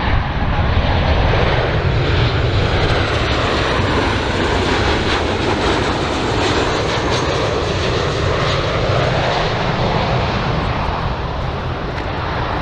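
Jet engine noise from a Boeing 737-800 (BBJ2) on landing approach with its CFM56-7B turbofans running: a steady, loud rush with a deep rumble underneath and a faint high whine in the first few seconds.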